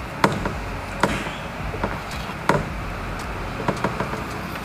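A whiteboard marker tapping and stroking on a whiteboard: a handful of short, sharp ticks, the loudest about a quarter-second in, over a steady low hum.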